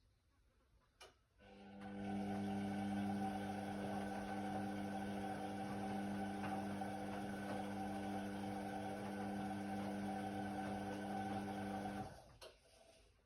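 Indesit WIDL 106 washer-dryer: a click, then a steady electric hum from the machine for about ten seconds, which cuts off, followed by a few light clicks.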